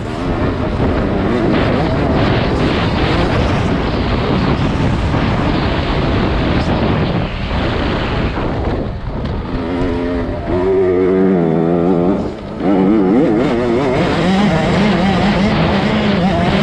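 A 65cc two-stroke motocross bike racing, heard from the rider's helmet camera: the engine revs up and down through the gears with wind noise over it, drops briefly about twelve seconds in, then holds a steadier high pitch near the end.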